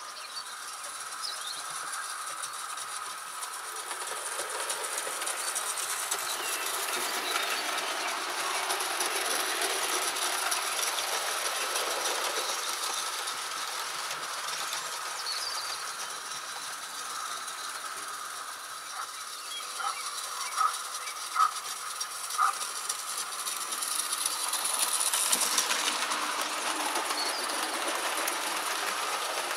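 OO gauge model train running on the layout: a steady whirring rail noise that swells and fades as it goes by, with three sharp clicks a little past two-thirds of the way through.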